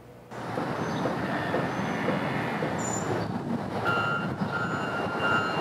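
Steady outdoor street traffic noise, with a vehicle's reversing beeper sounding a run of repeated beeps starting about four seconds in.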